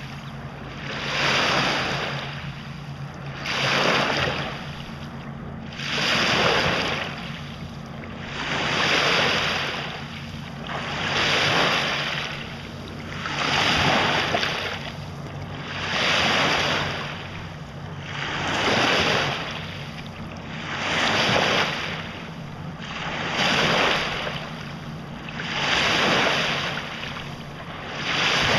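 Small lake waves breaking and washing up the shore, one surge of surf about every two and a half seconds in a steady rhythm.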